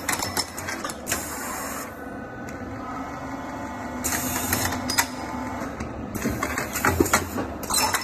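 Thread rolling machine running, its pair of rolling dies turning with a steady mechanical noise, broken by sharp metallic clacks about every second or so.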